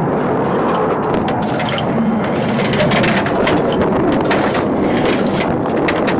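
Irregular metallic clicking and clatter of 25 mm cartridges feeding through an ammunition loading machine, over a steady loud mechanical noise.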